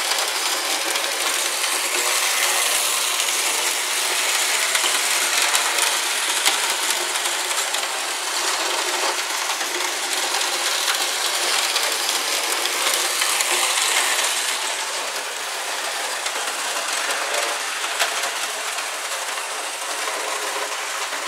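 Model steam locomotive running on a layout track: a dense, steady metallic rattle from its motor, gears and wheels on the rails, a little quieter from about fifteen seconds in.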